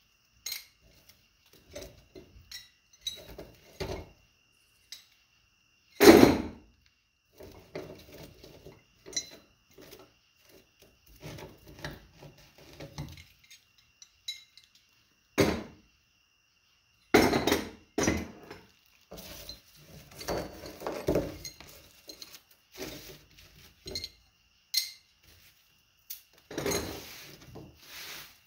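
Loose copper pieces from a stripped armature clinking and clattering as they are sorted out of debris on a workbench and dropped, with several louder clanks.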